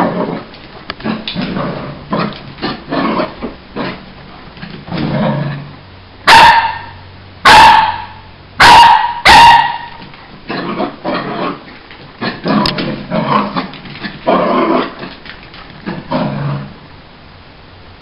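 Lhasa Apso making a run of short, low play noises, with four loud barks between about six and nine and a half seconds in. The sounds stop about a second before the end.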